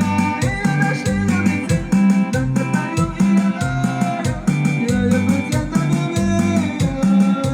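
Band music: a Mixtec dance song with a steady beat, a bass line swinging back and forth between two low notes, and melody above it.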